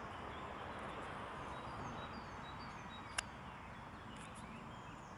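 Faint steady background hiss with small birds chirping high and faintly now and then, and one sharp click about three seconds in.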